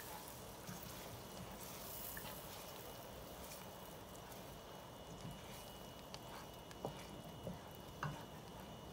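Wooden spoon stirring melted butter, seasoning and chopped onions in a stainless steel pot, with a faint sizzle and a few light clicks near the end.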